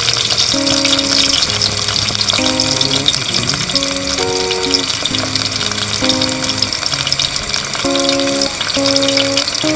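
Rain falling in a steady, dense crackling patter, with a slow melody of music playing over it.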